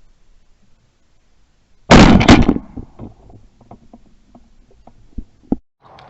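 A Weatherby Element shotgun fires about two seconds in: a very loud, sudden blast that clips, with a second peak close behind and a short dying tail. A few faint clicks and two sharper knocks follow near the end.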